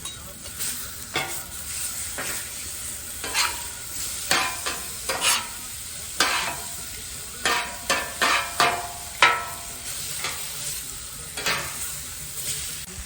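Food sizzling in a hot pan while a utensil stirs and scrapes it, a dozen or so quick scrapes against the pan, some with a short metallic ring.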